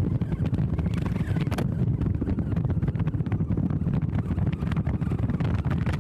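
Wind buffeting the microphone of a camera mounted on the roof of a moving car, a continuous low rumble that flutters rapidly, with the car's road noise beneath it.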